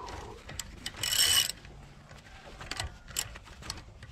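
Socket ratchet wrench clicking on a car's wheel lug nut as it is worked loose: a quick rapid run of ratchet clicks about a second in, then a few single clicks.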